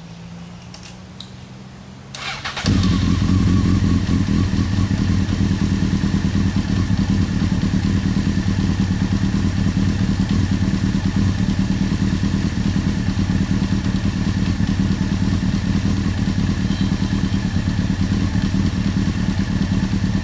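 Motorcycle engine cranked and started about two seconds in, then idling steadily and loudly.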